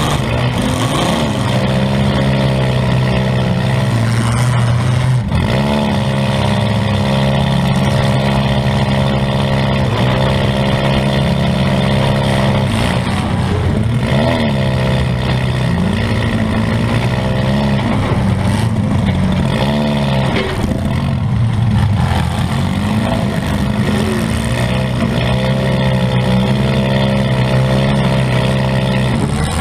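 Compact demolition-derby car's engine heard from inside the stripped cabin, revving up and easing off again and again as the car manoeuvres. A couple of short thumps come through, about five and fourteen seconds in.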